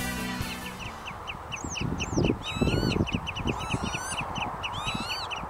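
Birds calling outdoors: a fast run of short, repeated chirps, about four or five a second, with higher swooping whistles over them. Irregular low gusts of wind buffet the microphone underneath.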